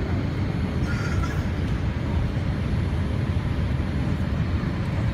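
Steady, deep cabin noise inside a Boeing 787-9 airliner descending toward landing: engine and airflow noise heard through the fuselage.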